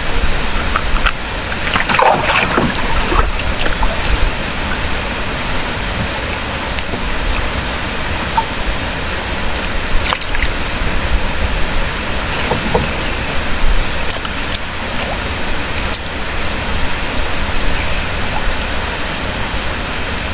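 Steady outdoor rumble and hiss with a constant high-pitched whine, broken by a few light clicks and knocks.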